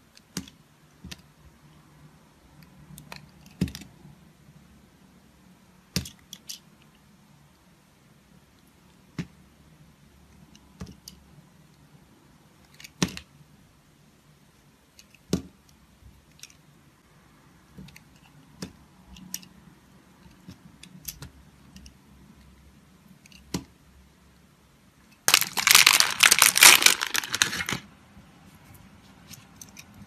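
A small blade cutting into a hard block of layered soap: sharp single clicks and snaps a second or more apart as pieces crack off. Near the end comes a dense crackling crunch of about two and a half seconds, the loudest sound.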